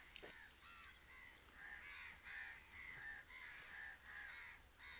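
Crows cawing over and over, short harsh caws following one another in quick succession, two or three a second, from about half a second in.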